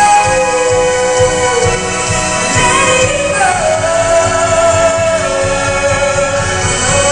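A female singer holds long notes over a live orchestra, sliding up to a higher held note about halfway through.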